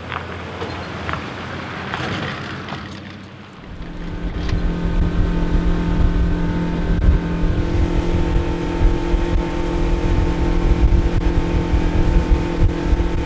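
Fishing boat's outboard motor running steadily at speed across open water, its hum mixed with the rush of wind and water; it comes in suddenly about four seconds in, after a quieter stretch with a low hum and a few clicks.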